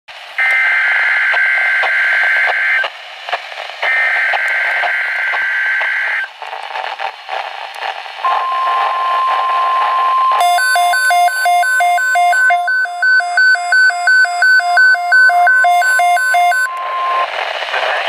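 Midland weather radio's speaker playing a NOAA Weather Radio emergency alert. First come two harsh buzzing bursts of the SAME digital header, then the long steady weather alert tone from about eight seconds in. From about ten seconds in, the radio's own alarm beeps rapidly over the tone, about three beeps a second, until the tone gives way to radio static near the end.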